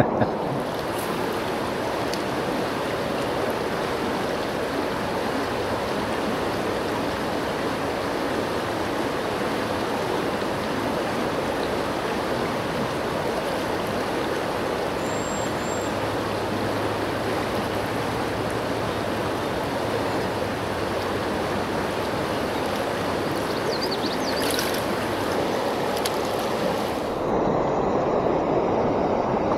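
Steady rush of flowing river water, a little louder near the end.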